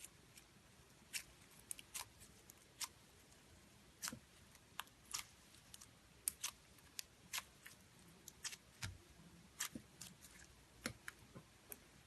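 Metallic slime being worked by hand, giving faint, irregular clicks and pops from small air pockets, a few a second.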